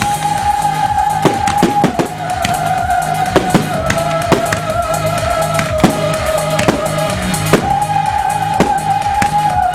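Electronic show music: a held synth melody that steps between a few notes, over a pulsing beat, with sharp cracks about once a second from the beat or from fireworks bursts.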